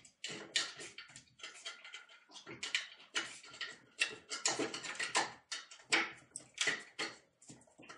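A cat thrashing on a tiled floor during an epileptic seizure: a rapid, irregular run of scraping and knocking as its paws and body strike the floor.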